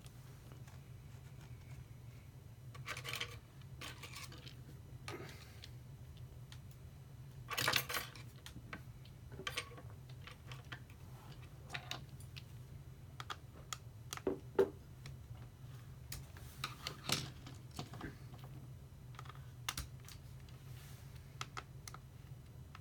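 Irregular light clicks, taps and short scrapes of hands handling a laptop's display panel and lid, nudging the screen into place, over a steady low hum.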